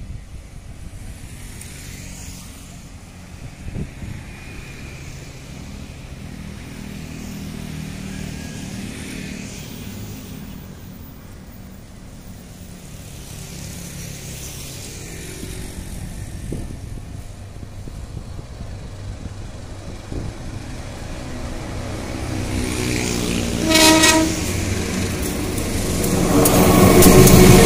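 Road traffic rumbles steadily at first. Near the end a KAI diesel locomotive sounds one short horn blast, then its engine grows loud as it passes close by.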